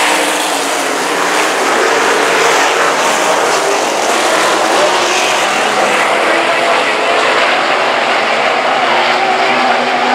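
A pack of RaceSaver 305 sprint cars' small-block V8 engines running at racing speed on a dirt oval. Several engine notes overlap, rising and falling as cars pass.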